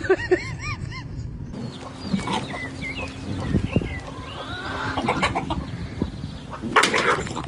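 Short, repeated animal calls with bits of knocking, and a louder noisy burst near the end.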